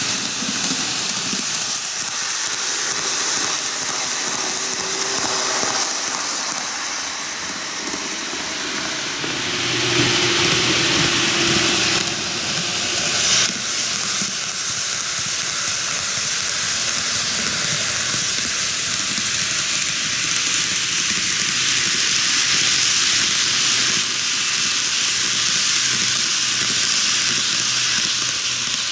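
TOMIX N-gauge model trains, an Odakyu 50000 VSE Romancecar and a 4000 series, running on superelevated track: a steady whirring hiss of small motors and wheels on the rails, a little louder from about ten seconds in as the VSE passes close, with a sharp click about halfway through.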